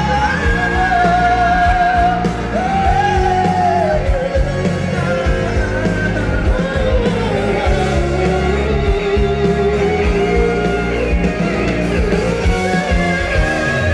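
Live pop-rock band with two male singers: long held sung notes over a steady beat of drums, bass and guitar, with the hall's reverberation.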